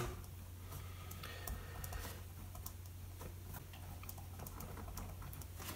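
Pen writing on paper: faint, irregular clicks and scratches of the pen tip as symbols are written, over a low steady hum.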